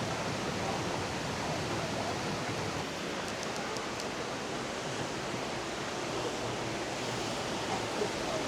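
Waterfall: falling water rushing steadily. A few faint ticks come about three to four seconds in.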